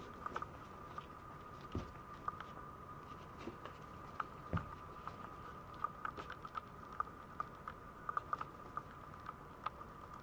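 Maltese puppies play-wrestling: irregular light clicks and scuffles of their claws on a tiled floor, with soft chewing sounds from play-biting.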